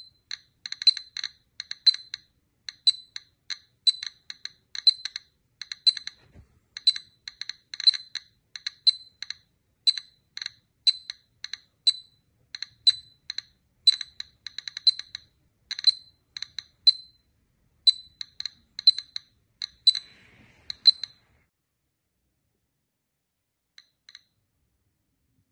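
Light, high-pitched clicking and clinking in quick clusters about once a second, stopping about three-quarters of the way through.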